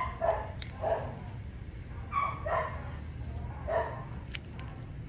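A dog barking repeatedly with short, fairly high barks, mostly in quick pairs, over a steady low rumble.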